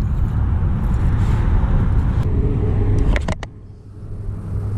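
Wind buffeting the camera microphone, a loud rough low rumble. A couple of sharp clicks come about three seconds in, and then it drops quieter for a moment before building again.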